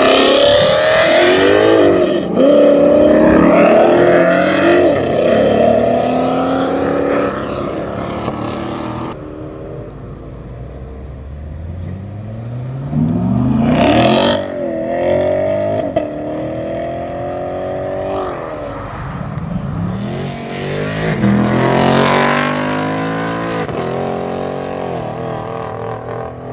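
Performance cars accelerating hard away one after another, a modified Ford Mustang first and then a C7 Corvette Grand Sport with its V8. The engine note climbs steeply in pitch and drops back at each gear change, with three separate pulls over the span.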